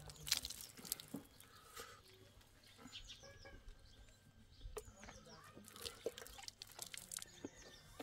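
Faint animal calls: a few short, high, falling chirps among scattered light knocks.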